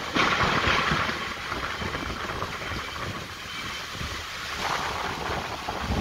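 Heavy thunderstorm downpour driven by strong, gusting wind, with the wind buffeting the microphone. The loudest gust comes just after the start.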